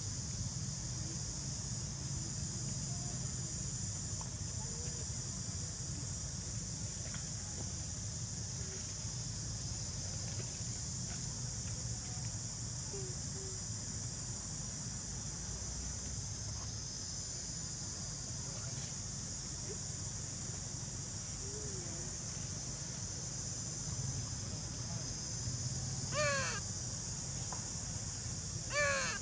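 Steady high outdoor hiss over a low rumble, and near the end two short harsh animal calls about two and a half seconds apart, each wavering quickly in pitch.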